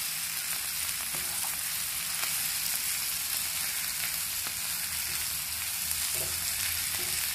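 Carrot sticks, green beans and peppers sizzling steadily in oil in a non-stick frying pan, with a few light scrapes of a wooden spoon stirring them.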